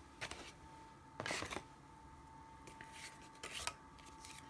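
Brief rustles and light clicks of cardstock and plastic die-cutting plates being handled. The rustles come twice, about a second in and again about three and a half seconds in, over a faint steady hum.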